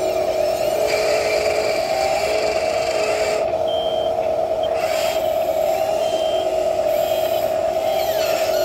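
Radio-controlled toy excavator and wheel loader working, with a steady electronic whine throughout and shorter tones that change pitch. Two short high beeps come about halfway through and again about two-thirds of the way through.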